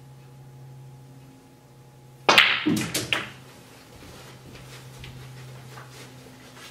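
Snooker balls: a sharp click of cue tip on cue ball and cue ball on the black about two seconds in, then a few quick knocks as the potted black drops into the pocket.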